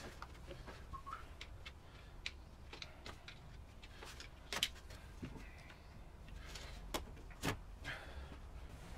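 Faint handling noises of an intake air hose being worked off an engine's throttle body: scattered clicks, knocks and rubbing of rubber and plastic, with sharper clicks about four and a half and seven and a half seconds in.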